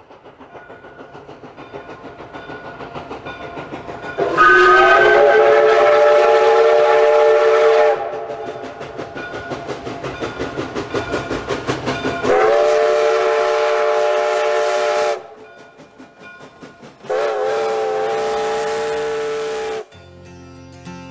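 Steam locomotive chuffing in a steady rhythm, about three beats a second and growing louder. It sounds three long blasts of its whistle, several notes at once: the first about four seconds in, the second at about twelve seconds, the third near the end.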